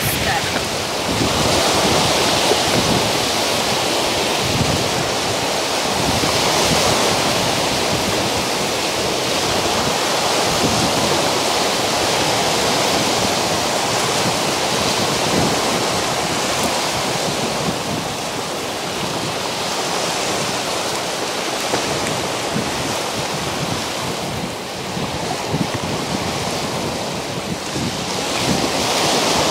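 Wind-driven waves breaking and washing over a rocky lake shore in a steady rush, with strong wind buffeting the microphone.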